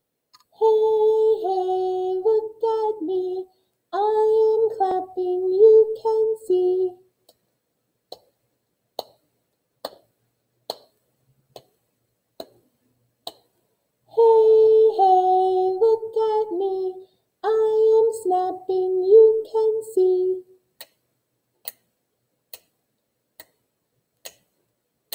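A woman sings two short melodic phrases of a children's song. After each phrase comes a run of soft, evenly spaced hand claps keeping a steady beat, about one clap every 0.85 s.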